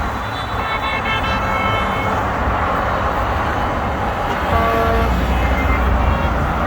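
Highway traffic passing with vehicle horns honking. A higher-pitched horn sounds from about half a second in for over a second, and a shorter, lower horn sounds about four and a half seconds in. A deeper rumble of passing vehicles builds toward the end.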